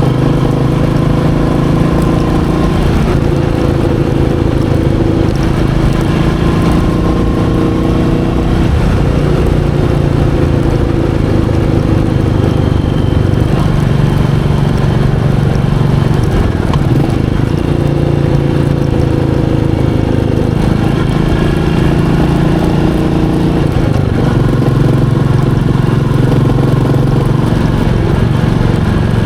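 Royal Enfield Meteor 350's single-cylinder engine running while riding, its pitch rising and falling several times as the revs change.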